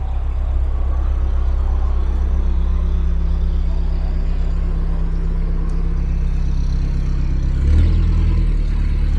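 Narrowboat diesel engine running steadily under way, a low even throb; about three-quarters of the way through its note shifts and briefly grows louder, as with a change of throttle.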